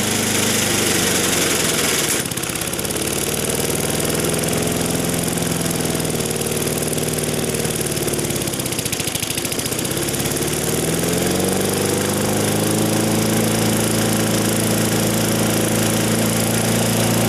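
Small single-cylinder lawn mower engine running with no oil, throttle zip-tied wide open and a bent crankshaft, being run to destruction. Its speed sags, drops hard about halfway through, then climbs back up and holds.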